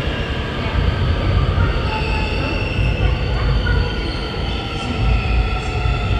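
Seoul Subway Line 4 train pulling into an underground station: a loud, steady rumble of the cars running on the rails. High whining tones join about two seconds in.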